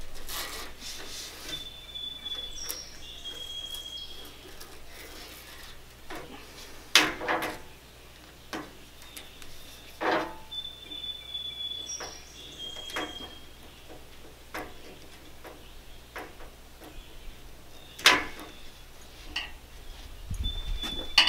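A spline roller and hands pressing spline and screen mesh into a window-screen frame: scattered clicks and knocks with rolling and scraping between, the sharpest knocks about seven, ten and eighteen seconds in.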